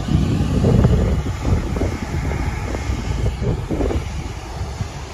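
Jet engines of a Boeing C-17 Globemaster III, its four turbofans running with a deep, steady rumble that is loudest about a second in, mixed with wind buffeting the microphone.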